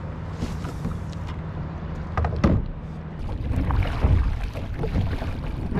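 Kayak paddle strokes, the blades dipping and splashing in the sea, coming repeatedly from about two seconds in, over a steady low rumble.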